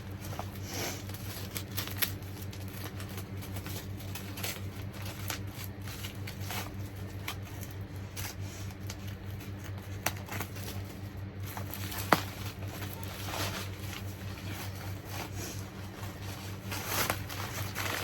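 Packaging being handled and unpacked: irregular rustling and crinkling, with two sharp clicks, over a steady low hum.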